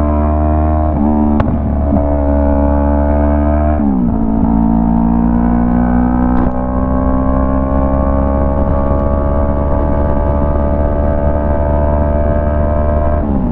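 Yamaha MT-03 motorcycle with a Jeskap full exhaust, dB killer removed, running under way. Its pitch drops at gear changes about a second in, about four seconds in and near the end, and climbs slowly in between, with a couple of sharp clicks.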